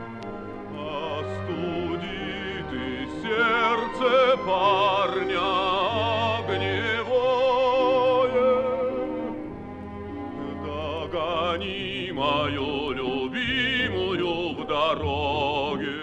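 Operetta music with an orchestra playing and a melody line carrying heavy vibrato, swelling louder from about three seconds in and again near the end.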